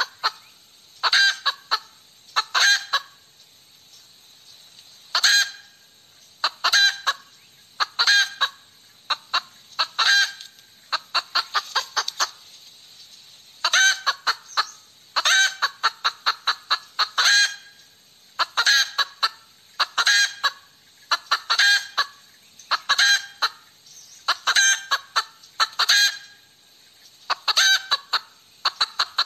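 Hen cackling: repeated loud bursts of rapid clucks, one burst every second or two.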